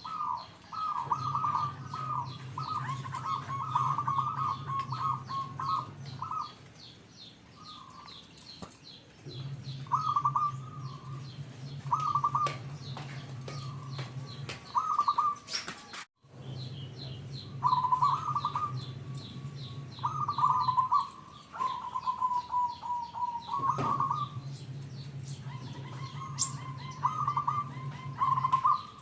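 Zebra dove (perkutut) cooing in repeated short phrases with brief gaps between them. A low hum comes and goes in stretches of several seconds.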